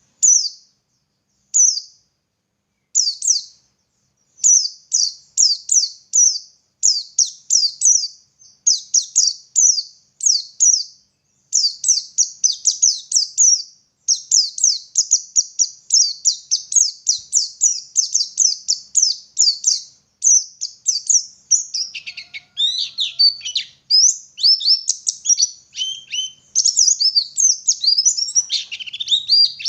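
White-eye (pleci) singing: phrases of rapid, high, thin notes that each slide downward, a few separate phrases at first, then running almost without break. From about two-thirds of the way in the song turns more varied, with lower notes mixed in.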